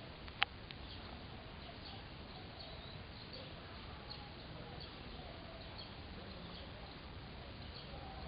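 Birds chirping in short repeated calls over steady outdoor background noise, with one sharp click about half a second in.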